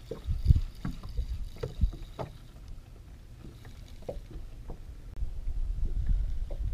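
Wind rumbling on the microphone, with scattered knocks and thumps from handling on the boat. The rumble grows louder about five seconds in.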